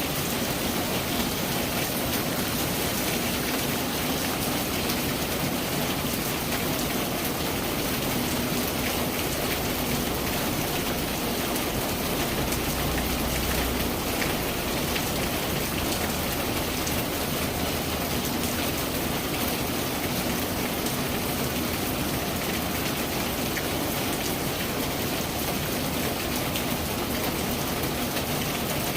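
Steady rain falling: an even hiss scattered with the fine patter of many drops, keeping the same level throughout.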